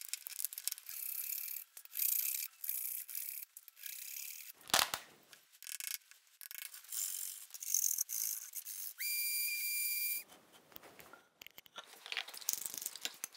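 Hand woodworking sounds of wooden parts being handled and worked: a run of short scraping and rubbing strokes. About five seconds in comes one sharp knock, the loudest sound. From about nine to ten seconds a steady high whistle-like tone is heard.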